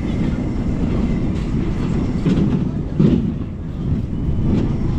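Small amusement-park train running on its track: a steady low rumble with a few sharp clicks scattered through it.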